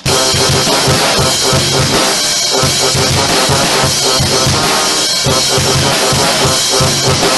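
Loud, dense band music starts abruptly: a fast, steady drum-kit beat with bass drum and snare under a wall of sound.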